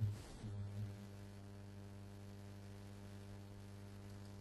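Steady low electrical mains hum in the recording, with a short faint noise at the very start.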